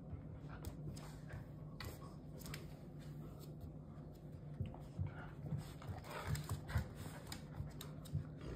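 A Nova Scotia duck tolling retriever and a puppy play-wrestling: quiet scuffling of paws on a mat and wood floor, with a run of soft thumps past the middle.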